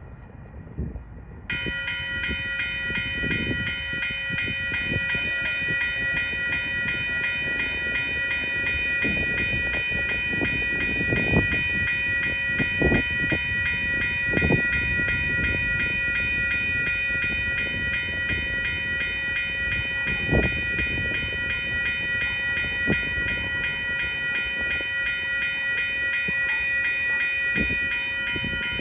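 Railroad crossing warning bell switching on about a second and a half in and then ringing steadily without a break, as a passenger train approaches.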